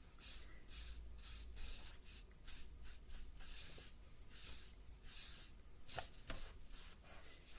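A sponge loaded with soft pan pastel rubbed back and forth across paper, a faint brushing stroke repeated about two to three times a second. Two light clicks come about six seconds in.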